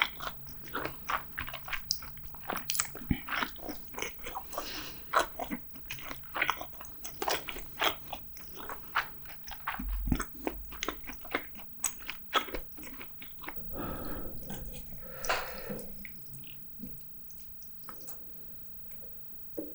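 Close-miked eating sounds: a mouth chewing and biting food, with many quick wet clicks and small crunches. Around two-thirds of the way through it grows softer and thinner toward the end.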